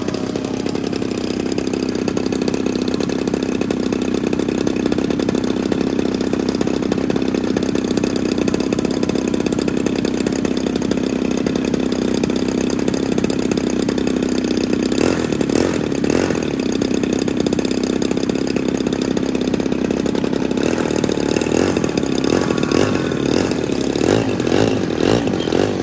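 Gas engine of a radio-controlled model airplane running steadily near idle, with a slight change in its note about two-thirds of the way through and again near the end.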